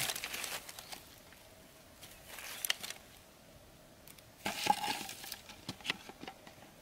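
Hands handling trap materials: rustling and small clicks in three short spells, the loudest about two-thirds of the way in, where a plastic drink bottle crinkles as it is hung on a bamboo crossbar.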